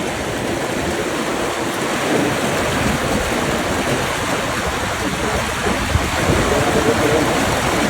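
Floodwater from an overflowing town stream rushing past in a steady, loud torrent.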